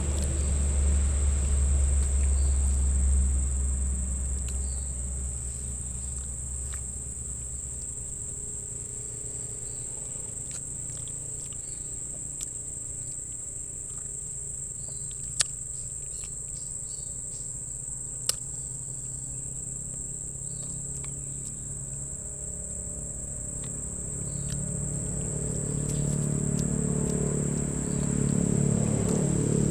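Insects droning steadily at one high pitch. A low hum is loudest in the first few seconds and fades out about eight seconds in, a low rumble builds near the end, and two sharp clicks come near the middle.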